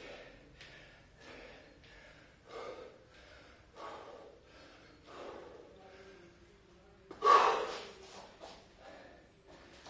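A man breathing hard from exertion during a set of bodyweight squats: short, sharp breaths in quick succession, with one much louder, longer gasping breath about seven seconds in.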